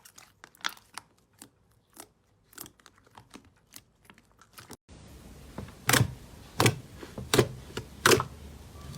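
Slime being handled: a run of small crackling clicks, then four louder wet pops spaced under a second apart.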